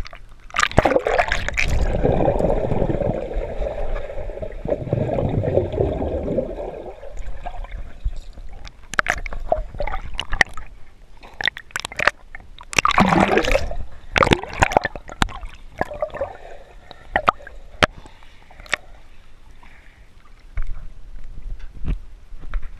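Swimming-pool water sloshing and gurgling around a GoPro's waterproof housing as it is dunked under the surface and brought back up. A dense, muffled rush fills the first several seconds, then sharp taps and knocks come again and again.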